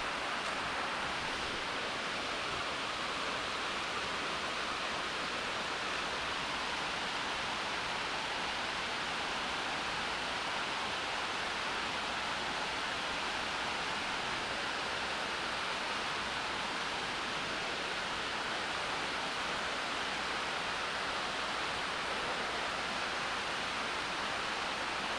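Steady rushing of a rocky mountain trout stream's running water, an even hiss that does not change.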